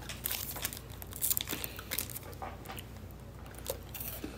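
Plastic wrapper of a chocolate wafer bar crinkling and crackling as it is handled and pulled open, in a run of short irregular crackles.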